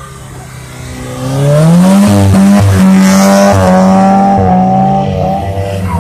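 Modified Mitsubishi Lancer Cedia with a loud aftermarket exhaust, revving up hard as it accelerates away. The engine note climbs about a second in, then holds high and loud with a few brief dips.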